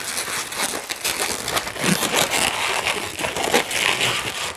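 Inflated latex twisting balloons rubbing, squeezing and scrunching against each other as one balloon's tail is pulled through and wrapped around the twists. The result is a dense, irregular rubbing and crinkling.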